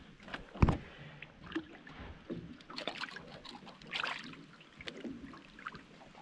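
Water splashing and sloshing around a small fishing boat as a caught peacock bass is let go, with a sharp knock about half a second in and scattered smaller splashes and knocks after it.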